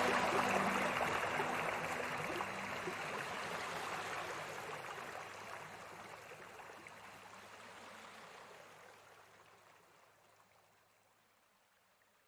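Flowing stream water, a steady rushing that fades gradually down to nothing near the end. The last held notes of soft background music die away in the first couple of seconds.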